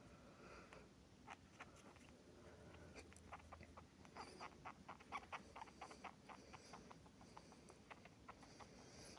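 Pet mouse making a rapid series of faint short squeaks, busiest about four to six seconds in.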